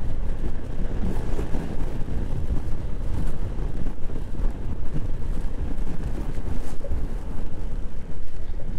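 Steady wind rush and rumble on the microphone of a Honda PCX scooter travelling at road speed on a wet road.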